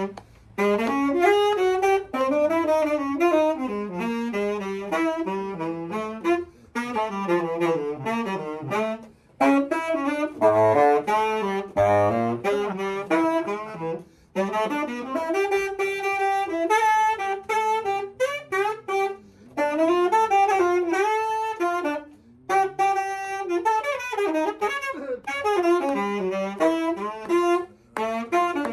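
Saxophone playing a fast jazz line alone, without piano, in phrases broken by short breaks for breath.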